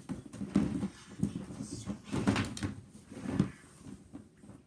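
Plastic toy dinosaurs knocking and rustling against each other as they are rummaged through in a toy box, in a string of irregular clattering bursts.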